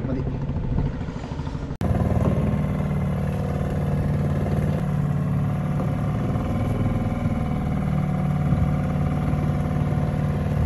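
An engine running steadily at a constant speed. The sound breaks off and resumes slightly louder about two seconds in.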